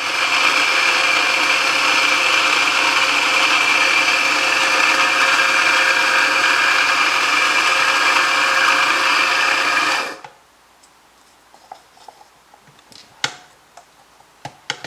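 Mazzer Mini flat-burr coffee grinder running as it grinds espresso beans: a loud, steady whir that stops suddenly about ten seconds in, followed by a few light clicks and taps.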